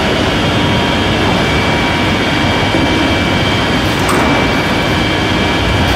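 Gypsum board PVC laminating machine running: a loud, steady mechanical rumble and clatter from its rollers and conveyor, with a constant high whine, and a short click about four seconds in.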